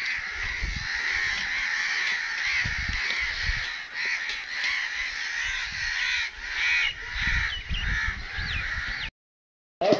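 Crows cawing over and over in a steady run of harsh calls, cutting off suddenly near the end.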